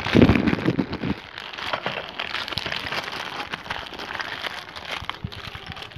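Plastic courier mailer bag being torn open and crinkled by hand: a dense, irregular run of crackles and rustles, loudest in about the first second.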